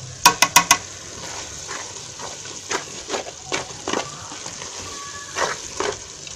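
Spatula stirring cooked sweet potato leaves in a steel pot: four quick, sharp, ringing clinks about half a second in, then scattered scrapes and strokes, over a faint steady sizzle.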